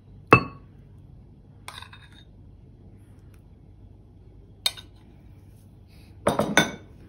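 Metal spoon clinking against ceramic bowls while yogurt is spooned in. A sharp ringing clink comes about a third of a second in, lighter taps follow near two and five seconds, and a quick double clink comes near the end.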